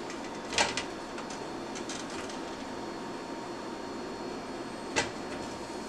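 Bagel halves being set into a square nonstick frying pan: a couple of light knocks about half a second in and a sharper click about five seconds in, over a steady low background noise.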